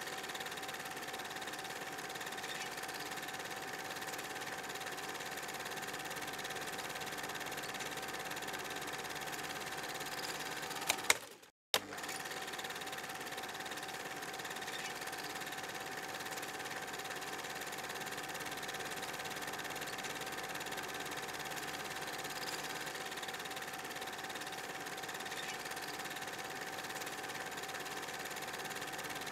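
Film projector running with a steady whir over hiss. It cuts out with a click about eleven seconds in, then resumes unchanged.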